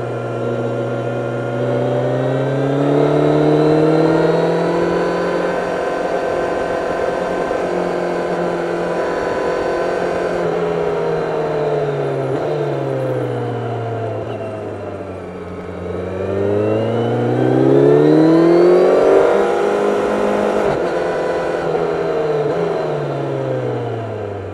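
Kawasaki 1000SX inline-four motorcycle engine under way, recorded on board. The revs climb over the first few seconds, hold and slowly sag, drop low about fifteen seconds in, then rise steeply to a loud peak in a hard acceleration before falling away again as the bike slows.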